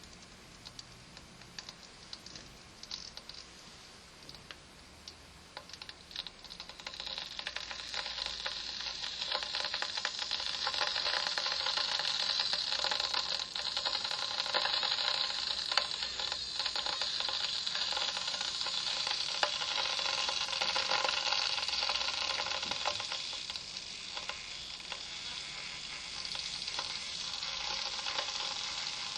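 Electric kettle heating water: faint ticking and crackling at first, then from about seven seconds in the sound swells into a steady fizzing hiss as the water heats toward the boil.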